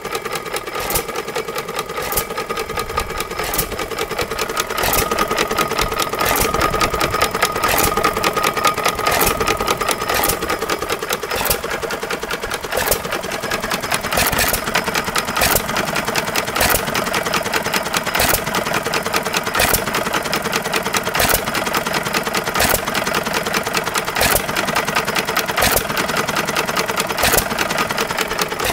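1920s Goold, Shapley and Muir 1.5 hp Cub hit-and-miss single-cylinder stationary engine running on its first start after sitting for decades, not yet set up to run properly. It keeps up a fast mechanical clatter, with a sharp bang roughly every second or so at uneven gaps.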